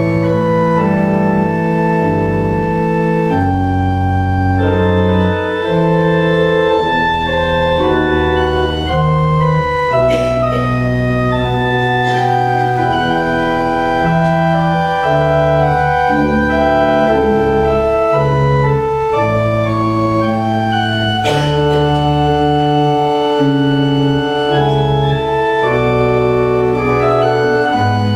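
Church organ playing a postlude at the close of a service: full, sustained chords held and changing every second or so, with a steady bass line beneath.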